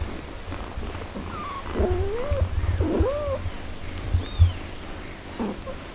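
A mother cat and her four-day-old kittens mewing: about five short, wavering calls that bend up and down in pitch, one of them thin and very high, while she licks the kittens. A low rumble runs underneath.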